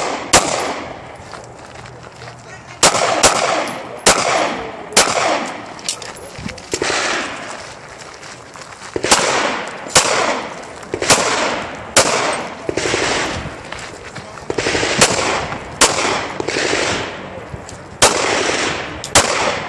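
Semi-automatic pistol shots fired rapidly, mostly in quick pairs and small strings with short breaks between them, about twenty shots in all, each trailing off in a short echo.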